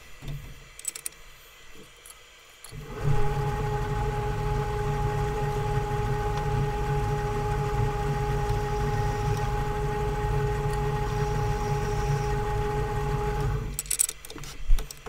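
Atlas 10-inch metal lathe running under its motor while a center drill in the tailstock is fed into the spinning stock: a steady hum with a whine. It starts about three seconds in and stops shortly before the end, with a few clicks and knocks before and after.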